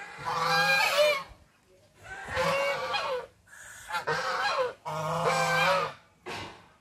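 Domestic geese honking in a series of calls, most about a second long with a couple of short honks between, separated by brief pauses.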